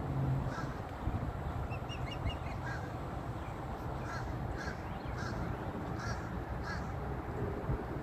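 Crows cawing: a run of short calls about half a second apart through the second half, with a few small higher chirps from another bird earlier, over a steady low rush of background noise.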